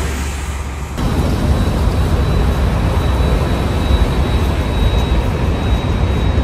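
Loud, uneven low outdoor rumble of wind and distant road traffic, which changes abruptly about a second in, with a faint steady high tone above it.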